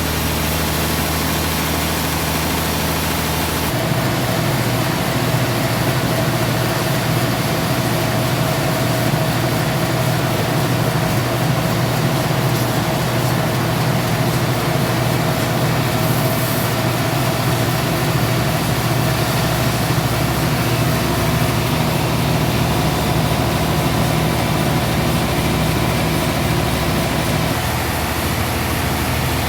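Sawmill machinery running with a steady drone; about four seconds in its low tone shifts and a higher whine joins it.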